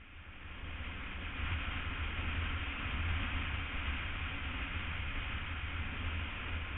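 Wind rushing over the microphone of a BMW F800 ST, with the low drone of its parallel-twin engine underneath. It fades in over the first second or so, then holds steady.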